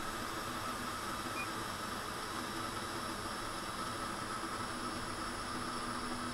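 Steady background hiss with a faint steady hum; no distinct event stands out.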